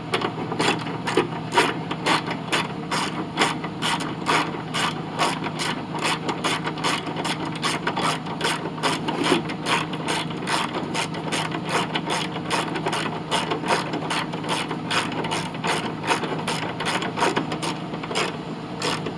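Hand ratchet wrench clicking steadily as it runs 12 mm bolts into a mower's bottom cover bracket, a quick even run of clicks snugging the bolts down.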